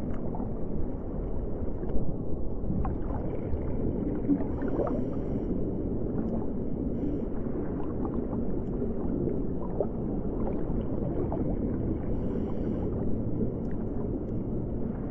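Underwater ambience: a steady, muffled low rumble with faint scattered clicks and crackles.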